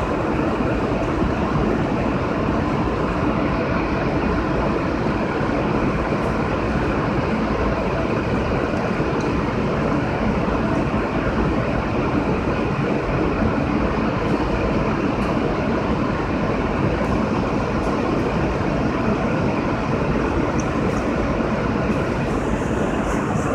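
Steady, unchanging noise from the onboard equipment of an R160A subway car standing still, with no wheel or track sounds.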